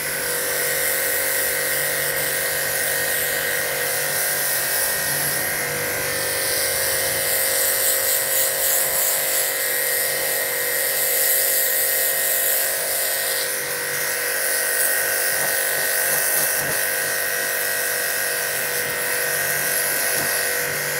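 Aimex D7 1800-watt electric high-pressure washer running steadily, its motor and pump giving a steady whine while the high-pressure water jet hisses against concrete.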